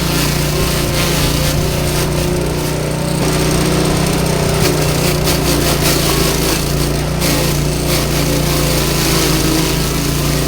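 Motor-driven grass chopper machine running steadily, a constant engine hum under a rasping noise that swells briefly at a few points.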